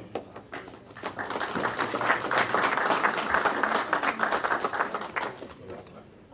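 Audience applauding: a few scattered claps, then clapping swells about a second in and dies away near the end.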